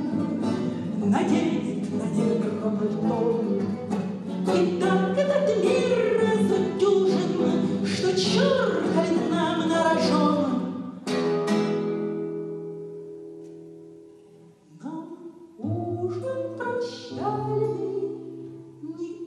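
A woman singing to her own nylon-string classical guitar. About eleven seconds in, the singing stops on a strummed chord that rings and fades, and the guitar then picks out single notes.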